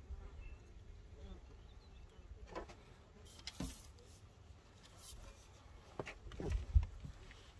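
Handling of fishing gear as the landing net is lifted: several scattered knocks and clatters, the loudest thump near the end, over a low rumble of wind on the microphone.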